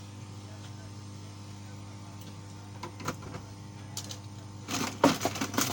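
Steady electrical hum from repair-bench equipment, with a few small clicks and then a quick cluster of sharp clicks and clatter near the end as small tools and parts are handled.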